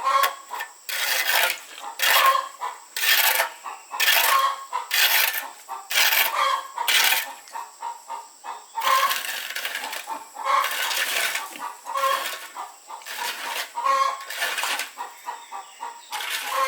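Metal hand tool working stone: a run of regular strokes, about one a second, each with a short metallic ring.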